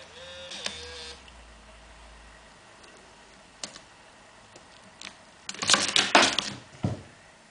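A Bengal kitten walking and pawing on a white MacBook's keyboard: a short electronic tone from the laptop in the first second, scattered single key clicks, then a loud burst of rapid clattering keys about five and a half seconds in, with one last click just after.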